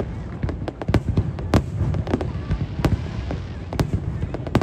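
Aerial firework shells bursting in quick, irregular succession: sharp bangs about two or three a second over a steady low rumble.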